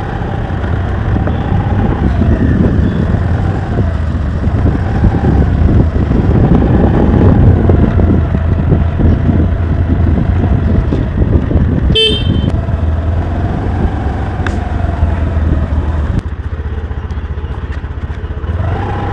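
Motor scooter running along at riding speed, with wind rushing over the microphone. A short horn beep sounds about twelve seconds in.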